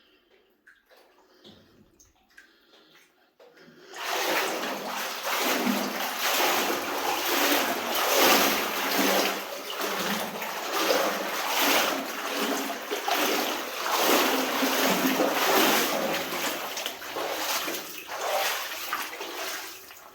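Person wading through water in a flooded mine adit, the water splashing and sloshing with each stride; after a few seconds of near quiet with small drips, the wading starts about four seconds in and goes on in surges about a second apart.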